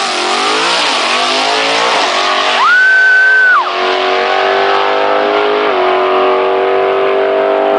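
Small-block V8 of a 1973 Camaro drag car with a five-speed stick launching hard and accelerating down the strip. Its revs climb and drop sharply with each quick manual gear shift. About two and a half seconds in, a loud high steady whistle rises in, holds for about a second and falls away. After that the engine note runs on at a steady pitch, with one more shift near the end.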